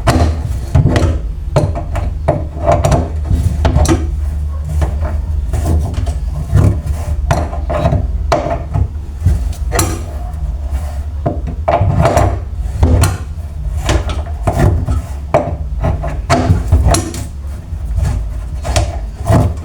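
Irregular knocks, clicks and scraping from hand work on kitchen faucet parts and fittings, over a steady low rumble.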